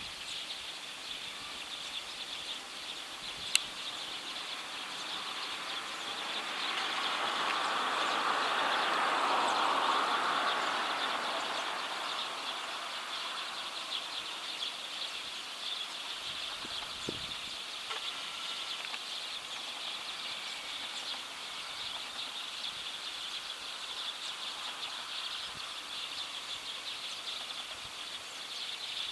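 A large flock of Eurasian tree sparrows chirping and chattering continuously. A passing vehicle swells and fades under the chirping in the middle, and one sharp click comes a few seconds in.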